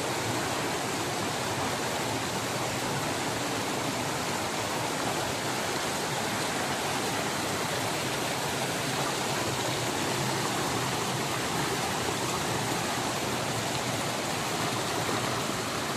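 Small river rushing, a steady, even flow of water noise.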